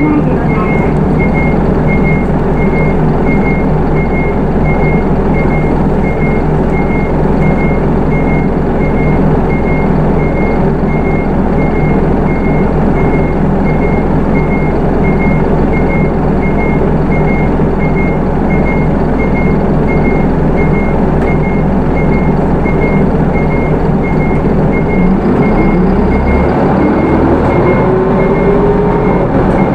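Hino Rainbow II bus's 4HK1 four-cylinder diesel running, heard from inside the cabin, with a high electronic beep repeating at a steady rhythm throughout. Near the end the engine note rises as the automatic bus gathers speed.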